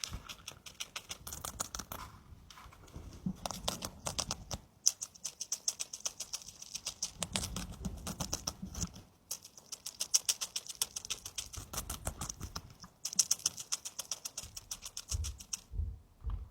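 Pet hamster eating close to the microphone: rapid crunching and nibbling clicks in runs of a few seconds, broken by short pauses.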